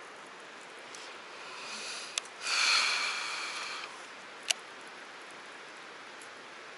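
A cast with a Shimano Metanium baitcasting reel: a rising swish and a click, then the spool whirring for about a second and a half and fading, and a sharp click about two seconds later. A small waterfall rushes steadily behind it.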